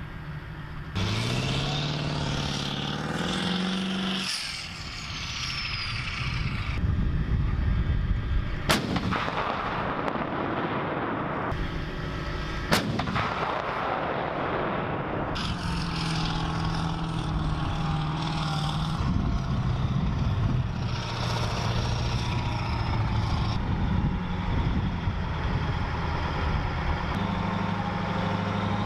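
M109A7 Paladin self-propelled howitzers firing: two sharp cannon blasts about four seconds apart. Between them, tracked vehicles' engines run, one rising in pitch as it revs near the start and others holding steady later on.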